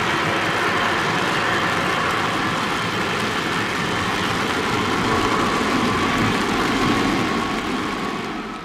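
Boeing 787's GEnx-1B jet engines running during the landing rollout on a soaked runway: a steady loud hiss with a whine, fading out near the end.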